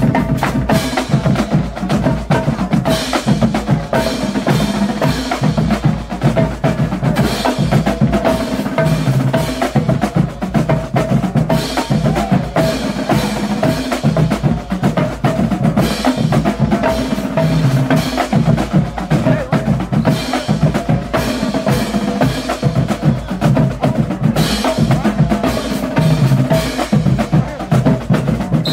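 Marching band drumline playing a continuous fast cadence, snare drums rattling over pitched marching bass drums.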